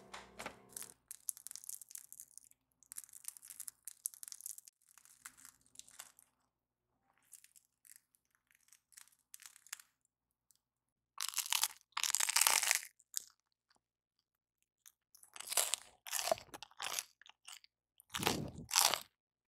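Crusty baked bialys crackling as hands handle them and tear one apart, in bursts of crunching and tearing. The bursts are light at first and loudest about two thirds of the way through and again near the end.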